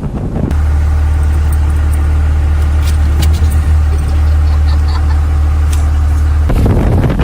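A motor running with a steady low drone that starts abruptly about half a second in and cuts off suddenly about a second before the end, with wind noise around it.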